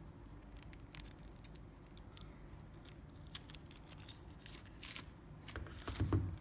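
Plastic wrapping rustling and crinkling as it is peeled off a figure by hand, in scattered small crackles that grow busier after about three seconds, with a louder handling bump near the end.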